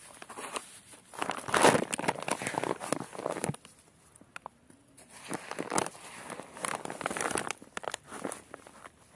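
Hands scooping and pressing loose soil in a plastic sack: irregular rustling and crunching of the soil and the crinkly plastic, in two bouts, the louder one a second or two in.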